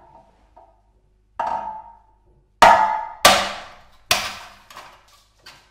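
Steel hammer striking the glass at the base of a CRT tube's neck to break off the electron gun. A light tap and a ringing knock come first, then three much harder strikes in quick succession about halfway through, each with a long fading ring, as the glass gives way. Fainter taps follow.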